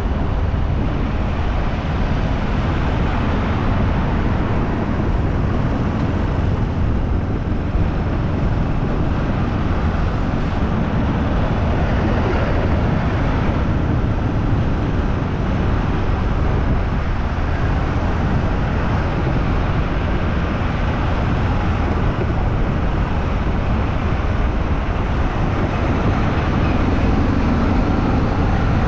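Steady, loud rumble of wind and road traffic while riding a bike through city streets, with no breaks or distinct events.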